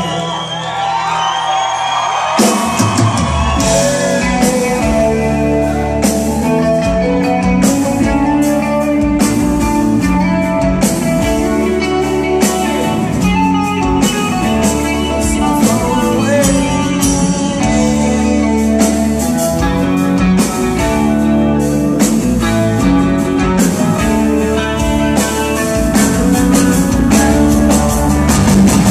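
Rock band playing live in a hall: electric guitars, bass and drums in an instrumental passage. After a sparser opening, the full band with steady drum hits comes in about two and a half seconds in.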